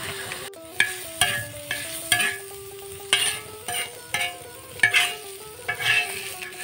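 A spatula scraping and turning mustard flowers and garlic cloves frying in oil on a flat metal pan: repeated short scrapes, roughly two a second, over a light sizzle.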